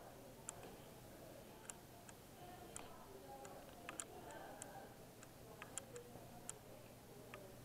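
Quiet room tone with a steady low hum, broken by about a dozen faint, sharp clicks at uneven intervals.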